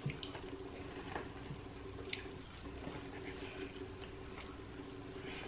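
Faint wet chewing and lip-smacking of a person eating fried chicken wings and chips, with scattered soft clicks and one sharper click about two seconds in, over a faint steady hum.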